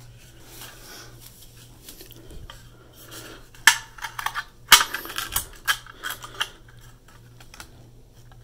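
Small hard clicks and clatter as a 2.5-inch SSD is handled and fitted into the PS4 Slim's hard drive caddy. Quiet handling at first, then a run of sharp clicks and knocks from about three and a half seconds in.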